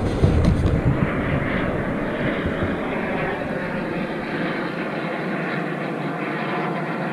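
BAE Hawk T1 jet trainers of the Red Arrows flying over: a steady rushing jet-engine noise, loudest in the first second and then holding level.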